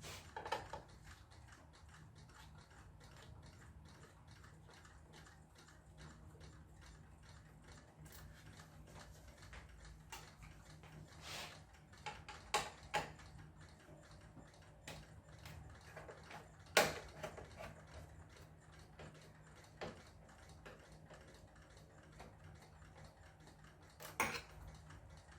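Scattered small clicks, taps and knocks of tools and metal and plastic parts being handled while an LCD TV is dismantled, the sharpest knock about two thirds of the way in, over a faint steady low hum.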